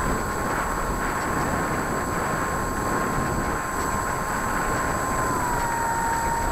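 RC model airplane's motor and propeller heard from a camera on the plane: a steady whine, with wind rushing over the microphone. The pitch of the whine dips slightly about five seconds in.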